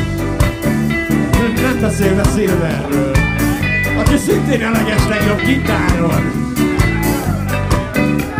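Live ska/rocksteady band playing an instrumental passage: electric guitars and keyboard over bass and drums, with a steady beat.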